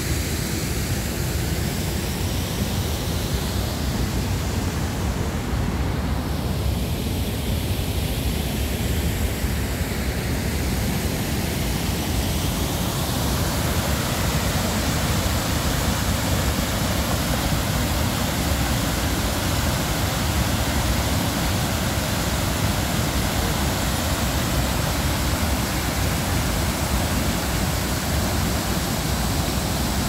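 Steady rush of river water pouring over a low curved weir into foaming white water. Its tone shifts a little over the first dozen seconds, then holds steady.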